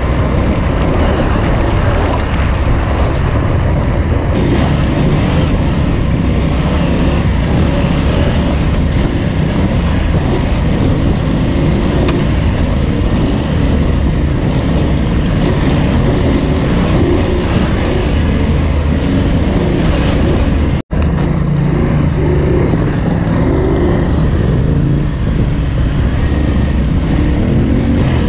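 Adventure motorcycle under way: steady engine noise mixed with a heavy low rumble, typical of wind on the microphone. The sound breaks off for an instant about three-quarters of the way through.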